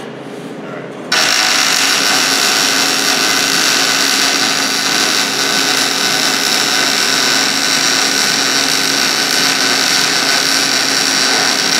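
MIG (GMAW) welding arc in short-circuit transfer on 14-gauge sheet, with C25 shielding gas and the machine set at 17.6 volts. The arc strikes suddenly about a second in, then runs as a steady, unbroken frying crackle while a bead is laid on a lap joint.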